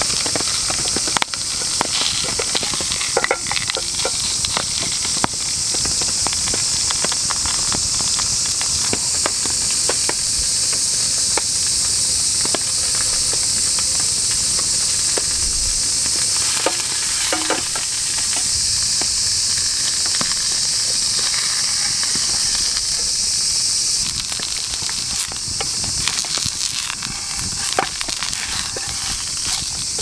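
A hamburg steak sizzling in an aluminium mess tin over a wood fire, a steady frying hiss with many small pops and crackles throughout.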